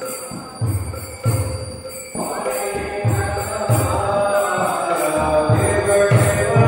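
Temple arati music: a bell rings over steady drum beats, and group chanting of a kirtan comes in about two seconds in and grows louder.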